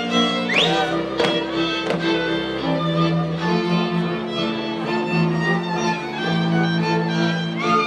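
Slovak folk string band playing a lively tune, with fiddles leading over a bowed bass line. A few quick upward slides come right at the start.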